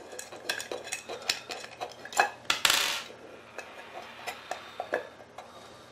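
Small metallic clicks and clinks of an Allen key working on the screws of a camera junction box as they are loosened, with a brief louder scrape about two and a half seconds in. The clicking thins out near the end.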